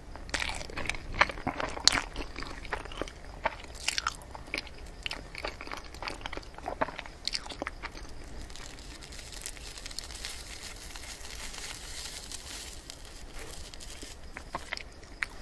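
Close-miked eating of mille crepe cake: sticky mouth smacks and chewing clicks for the first several seconds, then a soft, even scratchy hiss as a metal fork presses down through the cake's cream-filled crepe layers.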